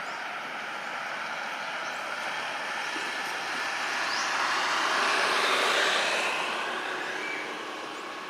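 A broad rushing noise that builds to its loudest about five to six seconds in and then fades, with a few short rising bird chirps over it.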